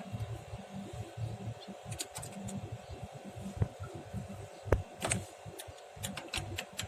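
Light clicks and taps of hand tools being handled, scattered through, with several in quick succession about five to six and a half seconds in, over a low uneven rumble and a faint steady hum.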